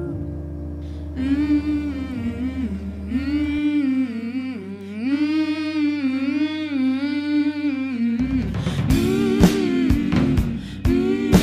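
Music: women's voices humming wordlessly in close harmony over a sustained low drone. About eight seconds in, drum hits come in under the voices.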